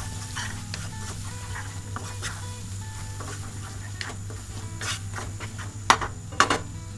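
Wooden spatula stirring and scraping a thick crushed ginger-garlic paste around a nonstick kadai, in quick repeated strokes. Near the end come two sharp knocks of the spatula against the pan.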